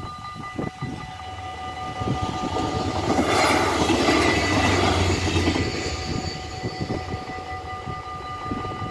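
Level-crossing warning bells ringing steadily while an Alstom LINT 41 diesel multiple unit passes. The train's rumble and low engine hum swell from about two seconds in, are loudest around four to five seconds, then fade as it goes by.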